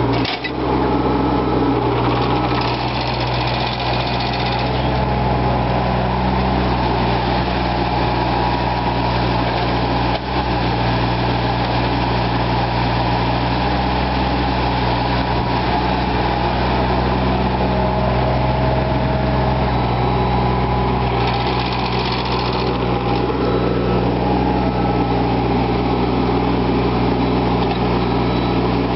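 Caterpillar 302.5 mini excavator's diesel engine running steadily under digging work, with an even hum. Twice a brief harsher hiss rises over it, a few seconds in and again about two-thirds through.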